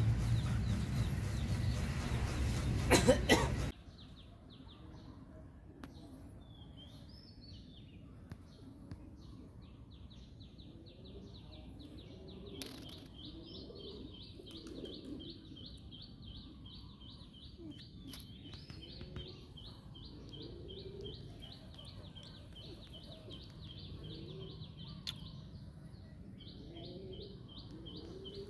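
A loud, rushing noise cuts off suddenly about four seconds in. After it comes a quiet outdoor background with a bird calling in long runs of rapid, evenly repeated high chirps.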